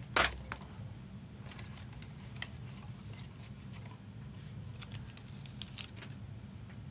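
Trading cards being handled and flipped through by hand: a sharp snap just after the start, then scattered light clicks and rustles of card on card, over a steady low hum.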